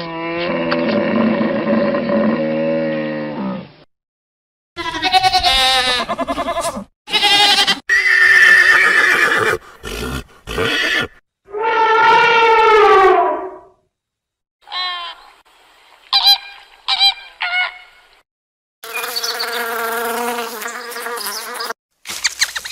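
A string of separate animal calls, one after another with short silent breaks between them, each a second or a few seconds long. The calls are pitched, and one about twelve seconds in slides down in pitch.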